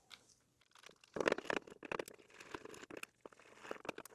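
Small Phillips screwdriver turning screws out of a plastic gel-blaster magazine shell, with the plastic being handled. After a quiet start, a dense run of small clicks, scrapes and crinkles begins about a second in.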